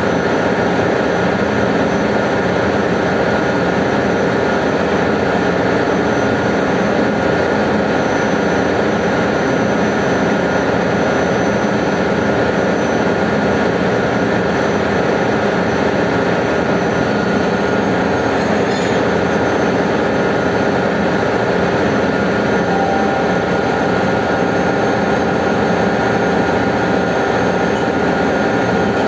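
Ship's engine-room machinery running: a loud, steady drone with several constant hum tones layered in it.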